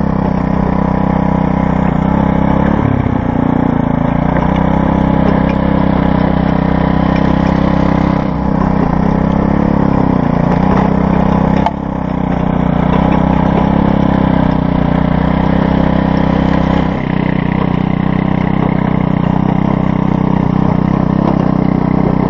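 Earthquake Versa front-tine tiller's 99cc four-stroke Viper engine running steadily under load as its tines churn dry, dusty soil. The level dips briefly three times, about 8, 12 and 17 seconds in.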